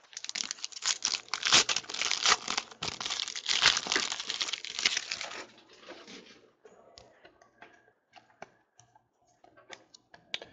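Foil trading-card pack wrapper being torn open and crinkled, a dense crackling for about five and a half seconds. Then a few light clicks as the cards are handled.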